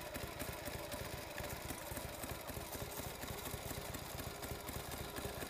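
Kick-start-only custom Harley-Davidson chopper's V-twin engine running at low revs as the bike is ridden slowly, with a steady, even beat.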